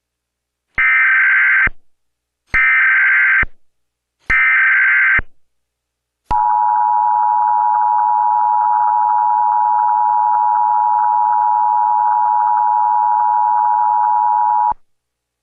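Emergency Alert System test tones: three short bursts of warbling digital header data, each about a second long, then the EAS attention signal, a steady two-pitch tone held for about eight seconds before it cuts off.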